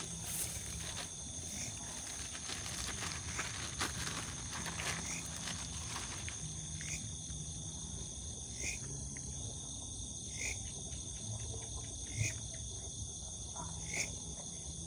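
Night insect chorus: a steady high-pitched trilling throughout, with a short chirping call repeating regularly about every two seconds from about halfway through.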